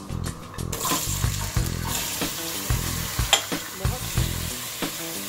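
Diced raw potatoes dropped into hot oil, which starts sizzling about a second in, then stirred with a metal spatula against the aluminium pot, with one sharp clink a little over three seconds in. Background music with a steady beat underneath.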